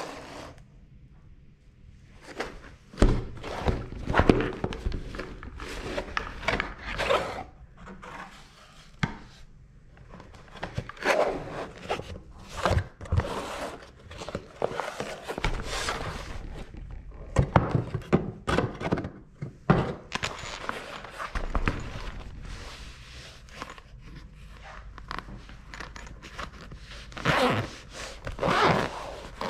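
Handling noise of a cardboard box being opened on a desk: irregular thunks, rubs and scrapes of cardboard flaps and of a soft fabric case being slid out and set down. Near the end, a zipper on the case is pulled open.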